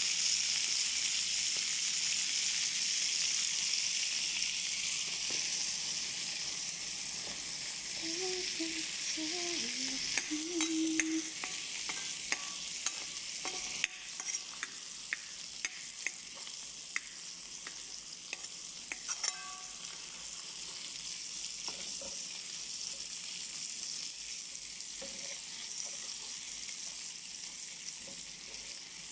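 Meat, onions and bell peppers sizzling in oil in a frying pan, the hiss slowly growing fainter. Through the middle there is a run of sharp clicks as a metal spoon turns the food against the pan.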